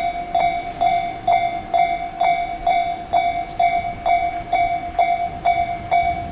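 Railway level-crossing warning bell ringing at a steady rate of about two strikes a second, one high ringing tone.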